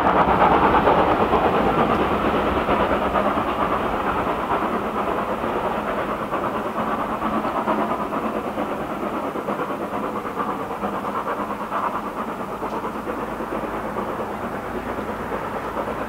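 A train running on the line, its steady noise slowly fading as it draws away.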